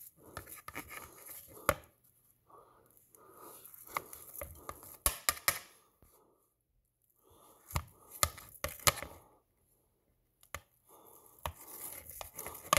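Table knife sawing slices off a block of canned Spam: several bouts of soft scraping strokes with short pauses between them, and a few sharp clicks of the knife.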